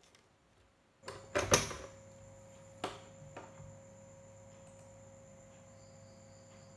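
Plastic lid of a thermal receipt printer snapped shut over the paper roll, a couple of loud clicks about a second in, then a single sharp click about three seconds in. A faint steady hum with a thin whine runs under the rest. The printer is switched off, so no printing is heard.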